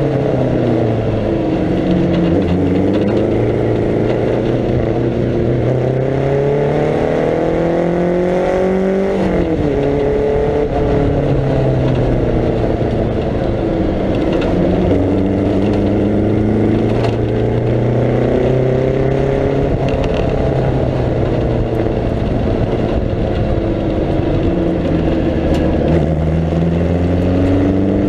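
1937 Riley 12/4 Sprite Special's four-cylinder engine under racing load: the revs climb for several seconds, drop sharply at an upshift about nine seconds in, then rise and fall through the corners and climb again near the end. The upshift goes straight from first to third, because second gear of its preselector gearbox is missing.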